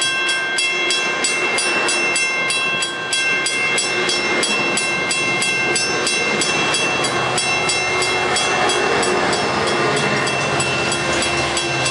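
Metrolink bilevel passenger cars rolling past close by, wheels clacking over the rails, until the end of the train goes by late on. Under it a grade-crossing bell rings rapidly and evenly, about four strokes a second.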